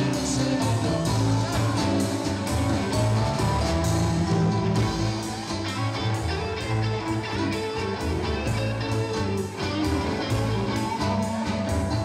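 Live blues band playing: electric guitars over a drum kit and keyboard, with a steady beat.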